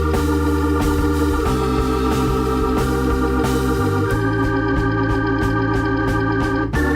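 Instrumental background music: sustained organ chords over a steady bass line, the chord changing every couple of seconds.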